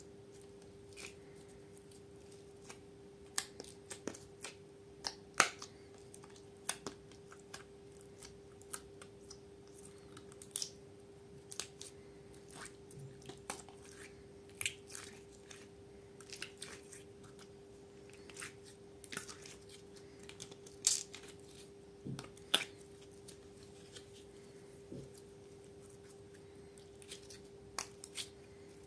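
Soft slime being pulled out of a plastic mould and stretched by hand, giving irregular small sticky pops and clicks, a few louder than the rest, over a faint steady hum.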